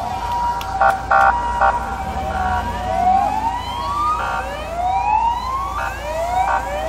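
Police car sirens sounding a series of rising whoops, several overlapping, over a steady tone. Short horn-like blasts come in several times between them.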